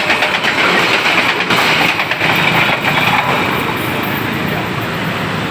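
Train running over the level crossing, a loud steady rumble of wheels on rail that eases slightly about three seconds in.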